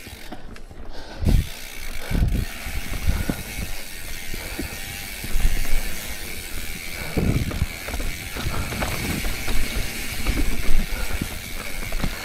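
Mountain bike's rear freehub ratcheting steadily as the wheel freewheels, with occasional low thumps from the bike rolling over the rocky trail.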